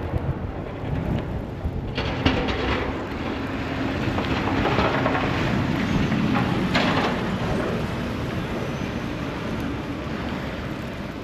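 A steady low rumble of passing vehicles, swelling louder about two seconds in and again near the middle, with wind buffeting the microphone.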